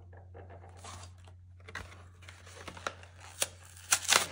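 Packaging being handled and opened by hand: rustling and crinkling, with a few sharp snaps or clicks near the end that are the loudest part.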